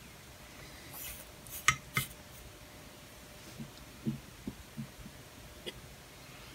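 Small handling sounds from a soldering iron and board on a workbench: a few sharp clicks about two seconds in, then several soft, low taps as the iron and jumper wire are brought to the joint.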